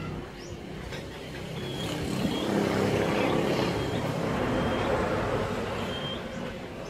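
A passing motor vehicle: a low rumbling noise that swells over the first few seconds and fades toward the end.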